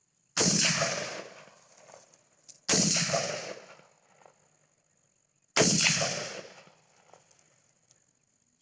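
Three single gunshots, a little under three seconds apart, each followed by a long fading echo.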